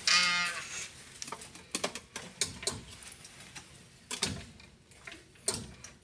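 A short high sound right at the start, then scattered sharp clicks and knocks at uneven intervals, the sounds of people handling things and moving about a room.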